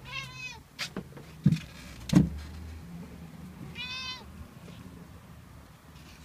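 A domestic cat meowing twice: two short, arching meows about three and a half seconds apart. Between them come three sharp knocks or thumps, the loudest about two seconds in.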